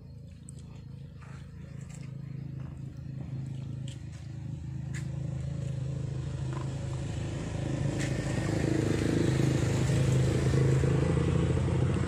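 A motor vehicle's engine running with a steady low hum, growing steadily louder as it approaches, loudest near the end.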